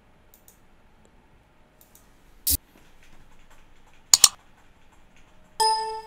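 Mostly quiet, broken by a sharp click about two and a half seconds in and a quick double click a little after four seconds. Near the end comes a short electronic beep with a clear pitched tone.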